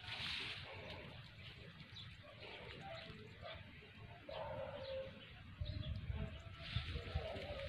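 A dove cooing softly a few times in the open field, with the low rumble of wind on the microphone.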